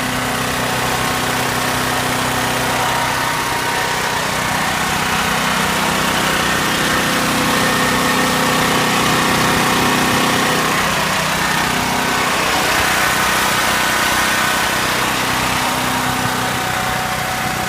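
Generac LP5500 portable generator's engine running steadily on propane vapor, extremely loud, a constant even drone with a slight swell in level partway through.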